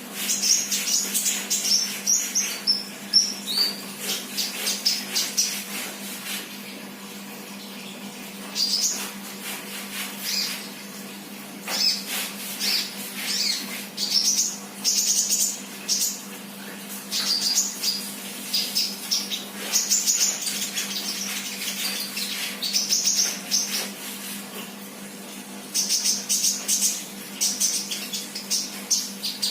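Sunbird (sold in Indonesia as 'kolibri') singing: rapid, high-pitched chirping and twittering phrases in short bursts, with a steady low hum underneath.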